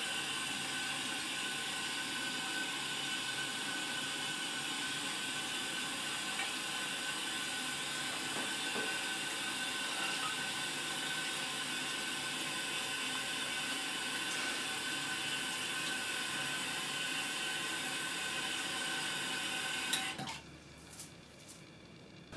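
Bathroom tap running steadily into a sink, then shut off suddenly near the end, followed by a few faint knocks.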